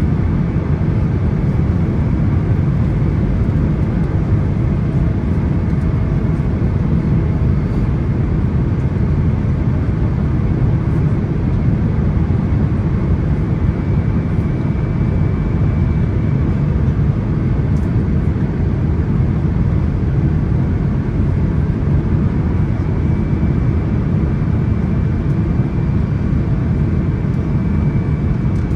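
Steady cabin noise inside a Boeing 777-300ER airliner: a constant deep rumble of engines and airflow, unchanging throughout.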